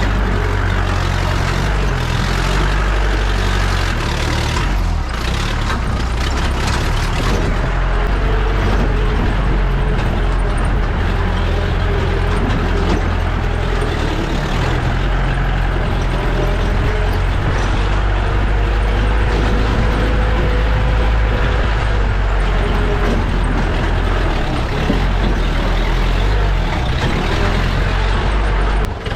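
Jeep driving on a rough off-road track: its engine runs steadily under a continuous deep rumble, with no letup.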